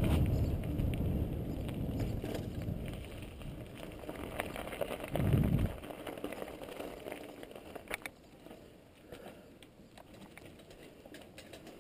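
Wind buffeting the action camera's microphone while riding a bicycle, dying away as the bike slows and rolls to a stop, with a brief louder gust about halfway and scattered clicks and rattles from the bike toward the end.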